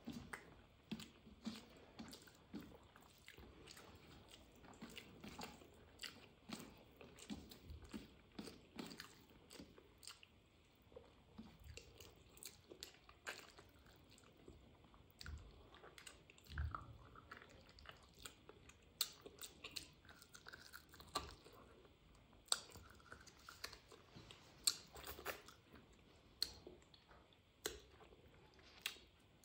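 Close-miked eating: a person chewing handfuls of rice and curry eaten by hand, with short wet mouth clicks coming irregularly, a few a second.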